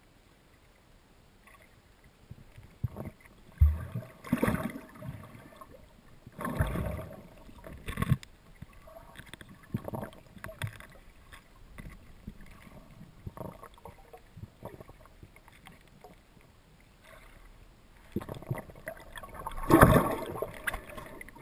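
Muffled water sloshing and knocks on an underwater camera's housing as it is moved about in the water. They come in irregular bursts, with the loudest a little before the end.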